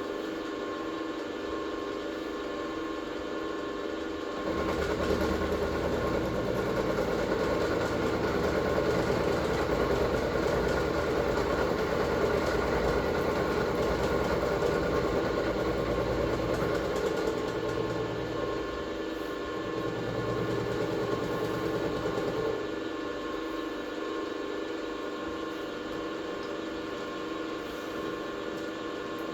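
A workshop machine runs for about eighteen seconds, starting about four seconds in and stopping near the end, over a steady mechanical hum.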